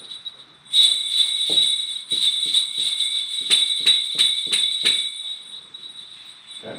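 Jingle bells shaken. A string of jingling shakes starts about a second in, running at about three a second with a steady bright ring, and stops about five seconds in, leaving the ring to die away.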